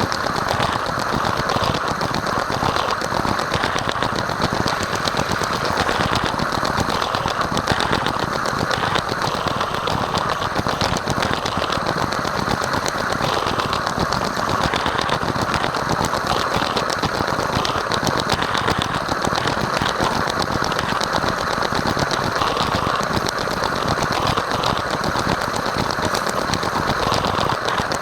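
Lego train running at high speed on plastic track: a steady motor whir under a continuous rattling clatter of the wheels on the track.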